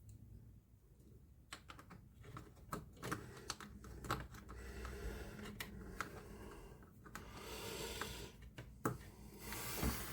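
Plastic monitor parts being handled and fitted together: a quick irregular run of clicks and taps with bursts of rustling, starting about a second and a half in.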